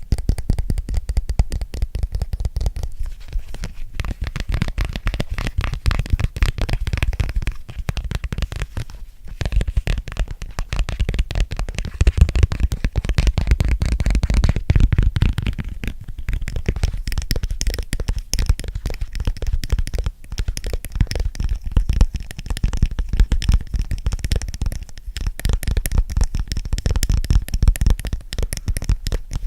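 Fast finger and nail tapping on an object close to the microphone: a dense, continuous stream of sharp taps with a deep thud beneath them.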